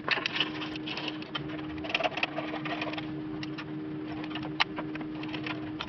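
Hydraulic bottle-jack shop press being pumped to press a wheel bearing out of a steering knuckle: a run of irregular metallic clicks and knocks over a steady low hum.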